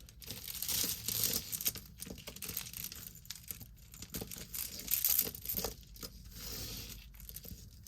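Crinkling and rustling of packaging being handled, with scattered small clicks of jewelry pieces.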